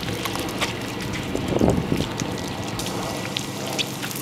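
Water spraying and splashing from splash-pad fountain jets, a steady hiss mixed with wind buffeting the microphone. A brief low bump about one and a half seconds in.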